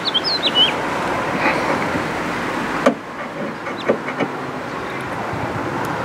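Steady outdoor background noise with a few bird chirps in the first second. A few light clicks about halfway through come from the latch rod being handled inside the tailgate of a 1995 Ford Bronco.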